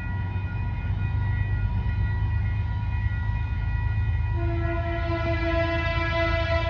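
A train running by with a steady low rumble, and a train horn sounding from about four seconds in.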